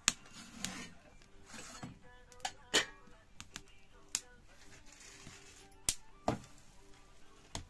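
Firewood crackling in a clay cooking stove, with irregular sharp pops, and hands slapping roti dough between the palms.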